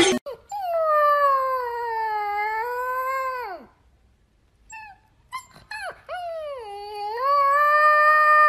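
Husky-type puppy howling: two long howls, each dipping in pitch, then rising and falling away at the end, with a few short faint sounds between them.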